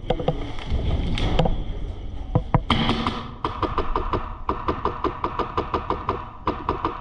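Airsoft gun firing on full auto: two long bursts of rapid, even clicks at about nine shots a second, the second starting after a short pause. Before them, a few knocks and handling noises.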